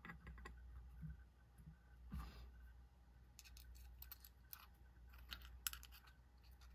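Faint, scattered small clicks and light taps of metal knife parts being handled and fitted together during reassembly of a folding flipper knife, with a short soft rustle about two seconds in and a quicker run of clicks in the second half.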